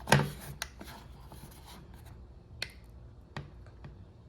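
Metal clicks of pliers gripping and working at a small retaining pin in a trunk latch's cable clip: one sharp click just after the start, then a few lighter, separate ticks.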